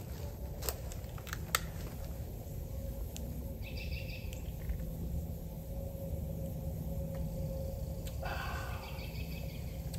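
Woodland ambience: a steady low rumble with a few faint clicks in the first two seconds, and two short chirping bird calls, about four seconds and about eight seconds in.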